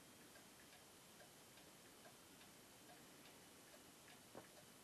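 Near silence: quiet room tone with a faint, regular ticking a little over two ticks a second, and one slightly louder click near the end.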